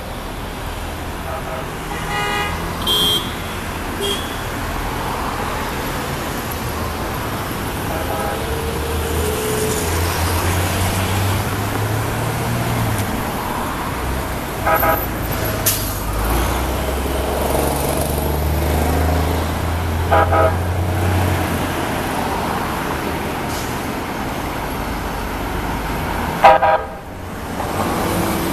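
A Nippon Sharyo P850 light-rail train approaching on street-running track amid road traffic, with a steady low rumble of traffic and train. Short horn toots sound several times, the loudest near the end as the train passes close by.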